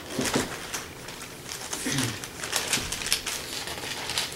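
Irregular rustling and light clicks of paper being handled, as if pages are being leafed through.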